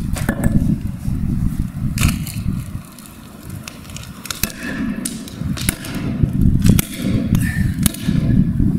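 A mallet smashing a Samsung touchscreen mobile phone on a concrete floor: a run of sharp knocks and cracks in the second half, over a steady low rumble.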